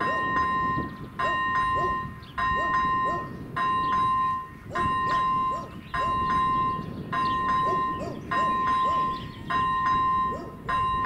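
Level-crossing warning bell ringing in a steady rhythm, one ringing burst about every 1.2 seconds, over a low, even rumble. The crossing is active, its red lights flashing.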